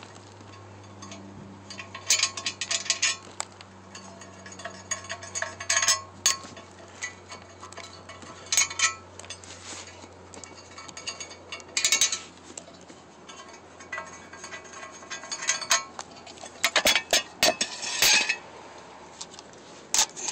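Steel clutch parts (pressure plates, clutch disc and flywheel) clinking and clattering against each other and the pavement as they are handled, in irregular bursts of sharp metallic clicks. A steady low hum runs underneath and fades out around the middle.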